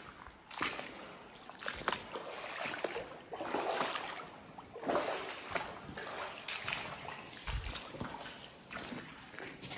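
Splashing and sloshing of someone moving through shallow cave-stream water over gravel, in an irregular string of splashes roughly one every half second to a second.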